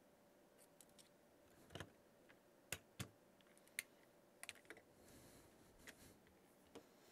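Irregular sharp clicks and light knocks, about eight in all, from hands working the controls, switches and test leads of a Tektronix 577 curve tracer, over a faint steady hum.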